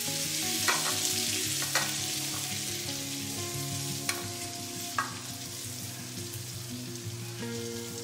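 Hot oil still sizzling in a nonstick wok as fried shrimp are scraped out of it with a spatula, with four sharp clicks of the spatula on the pan and shrimp dropping into a ceramic bowl.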